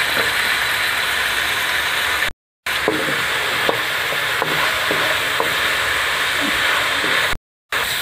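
Chicken, peas, diced tomato and carrot sizzling in hot oil in a wok, stirred with a wooden spatula that knocks and scrapes against the pan now and then. The sound cuts out twice for a moment.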